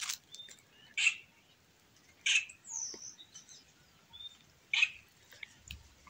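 White-naped jays (cancão) calling in the scrub: three short, sharp calls spread over several seconds, with a higher whistled note that bends in pitch just after the second.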